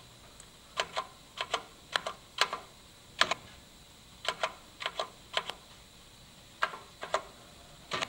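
Pushbuttons on a Viking VFR-400 release control panel being pressed repeatedly: about a dozen sharp clicks, many in quick pairs, at an uneven pace.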